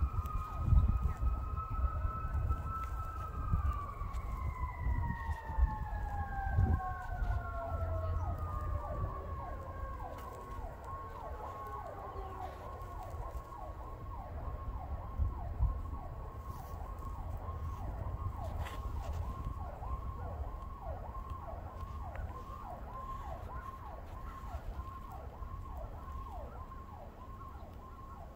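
Fire engine sirens. One steady wail slowly drops in pitch over several seconds, winding down. Another siren yelps in quick repeated downward sweeps, a little over two a second, under a low rumble.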